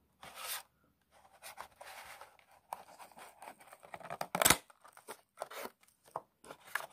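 Cardboard-and-plastic window box of a die-cast model car being handled: short rustles and scrapes of the packaging as it is tipped and worked open, with one sharp tap about four and a half seconds in.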